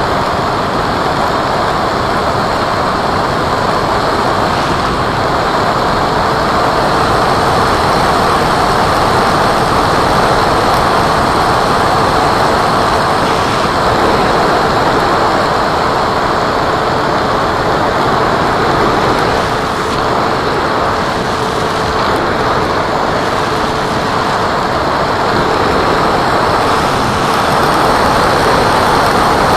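Radio-controlled model Cessna in flight: a steady rushing of air and propeller noise, with a faint steady hum from the motor.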